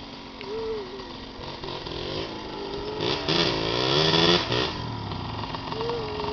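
ATV engines running, with one revving up: the pitch climbs and it is loudest from about three seconds in to about four and a half, then drops back to a lower run.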